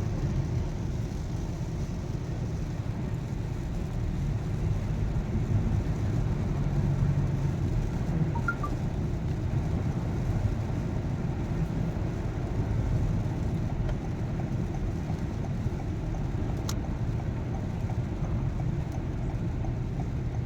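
Steady low rumble of a car's engine and road noise heard from inside the cabin while creeping through traffic, with a single sharp click about sixteen seconds in.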